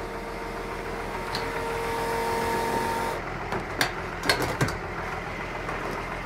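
Electric pump of a farm diesel tank humming steadily, then cutting off about three seconds in. This is followed by several sharp clicks and knocks as the fuel nozzle is hung back in the tank's cabinet, with a tractor engine idling underneath.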